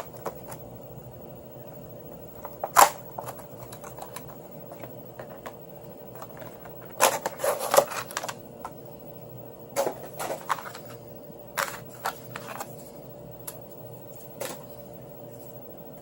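Plastic hard case handled while being unboxed: scattered clicks and knocks, a sharp one about three seconds in and a cluster around seven to eight seconds, over a steady background hum.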